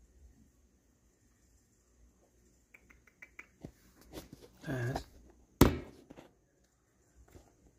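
Quiet room with a quick run of light ticks, a brief low voice sound, and then one sharp knock, the loudest sound, a little past halfway through.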